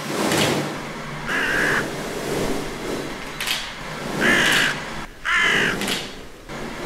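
Three harsh crow-like caws, each about half a second long, with short breathy whooshing puffs between them.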